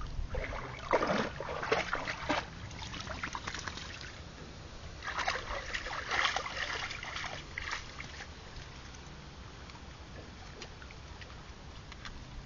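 Labrador splashing through shallow lake water as it swims and wades ashore, with water sloshing and dripping. The splashing comes in bursts in the first couple of seconds and again about five to seven seconds in, then dies down as the dog climbs onto the rocks.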